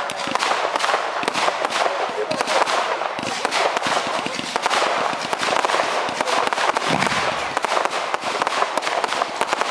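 Fireworks crackling and popping densely, with many rapid, overlapping sharp reports.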